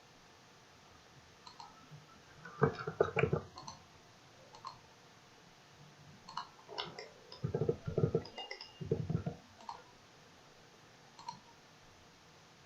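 Computer mouse clicking in scattered single clicks and short clusters, with a few duller knocks among them.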